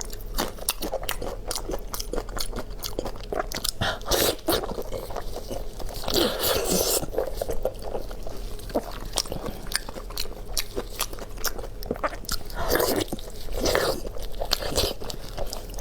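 Close-miked eating: crunchy bites and chewing, a steady run of sharp crackles with a few longer, louder stretches.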